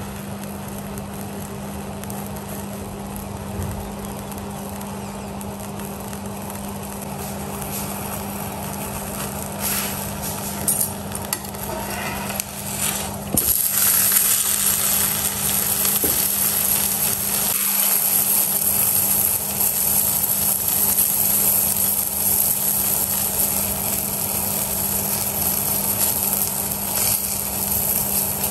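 Paratha frying in a non-stick pan: a quiet sizzle over a steady hum, a few spatula scrapes and knocks as it is turned a little before halfway, then a louder, fuller sizzle for the rest of the time as the turned paratha fries and oil is spread over it with a spoon.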